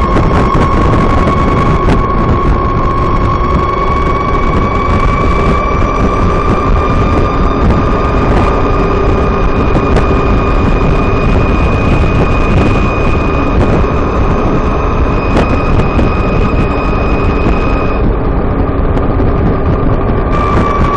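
VX1 motorcycle riding at steady road speed of about 30 mph: a high, steady whine that rises slightly in pitch, over heavy wind and road noise, with a few sharp ticks. The rider is recording a transmission chirp that he finds louder once the transmission is warmed up.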